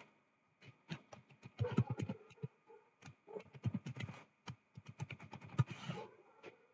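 Typing on a computer keyboard: quick key clicks in uneven bursts, with a few heavier keystrokes, while a username and password are entered.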